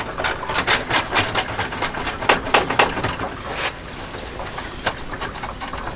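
Hand ratchet clicking quickly and evenly, about five or six clicks a second, as it backs out the small screws holding the fan shroud. After about three seconds the clicking thins out to a few single clicks.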